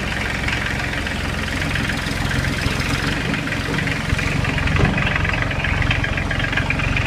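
Tractor engine idling steadily with an even, fast low chug. A brief knock sounds about five seconds in.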